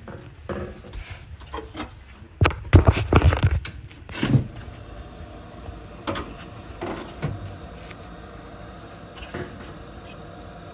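For the first four seconds or so, irregular clunks and clatter of handled metal. Then a steady mechanical hum with several steady tones sets in as the gas furnace runs on a call for heat.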